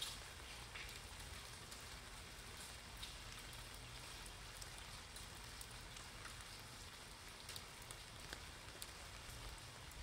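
Steady rain falling on wet pavement, with scattered sharper drops ticking close by.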